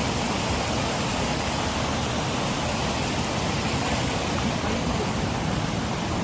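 Waterfall water rushing: a steady, even roar with no breaks.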